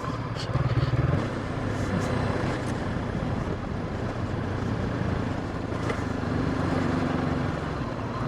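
Honda CB500X's parallel-twin engine running as the motorcycle climbs a rough dirt trail, pulling harder for a moment just under a second in, then running on steadily, with rumbling noise on the camera microphone.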